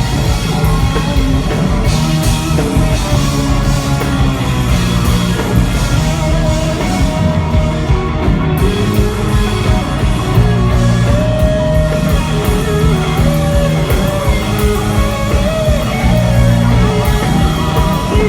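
Rock band playing live: loud electric guitars, bass and drums, with a singing voice over them.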